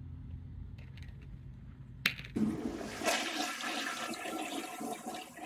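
A low rumble, then a sharp click about two seconds in, followed by a toilet flushing: a rush of water lasting about three seconds.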